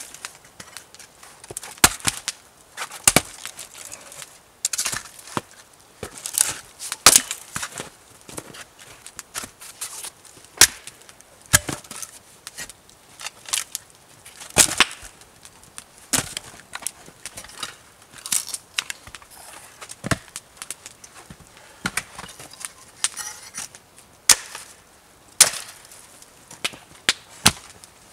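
Axe splitting firewood on a stump chopping block: a steady run of sharp wooden strikes and cracks, one every second or so, as the rounds split apart.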